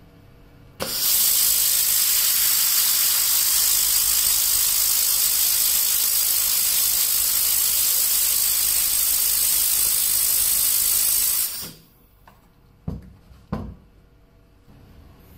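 Handheld fiber laser welding gun welding a stainless steel T-joint: a loud, steady hiss that starts sharply about a second in and cuts off sharply when the trigger is released some ten seconds later. Two short thumps follow near the end.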